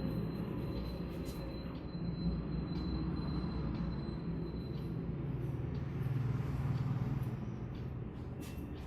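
Steady low background rumble with a few faint clicks and rubs from hands massaging the head.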